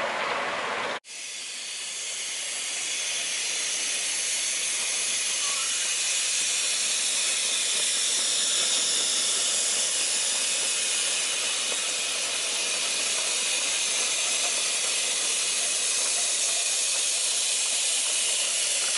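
Steam escaping from a 7¼-inch gauge steam locomotive as a steady, unbroken hiss. It starts after an abrupt cut about a second in.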